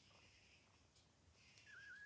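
Near silence: faint room tone with soft rustling, and a brief, faint wavering squeak near the end.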